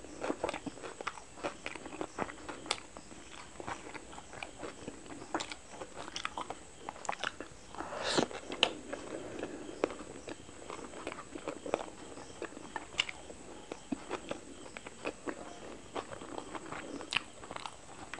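Close-miked eating sounds: chewing and biting into egg roll and chicken momos, with many irregular wet mouth clicks and smacks. One louder bite about eight seconds in.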